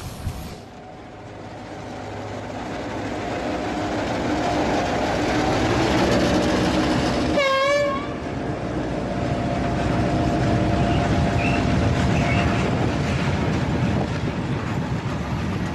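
A train passing: its rumble builds over the first several seconds, a brief wavering high note sounds about seven and a half seconds in, and the rumble then runs on steadily.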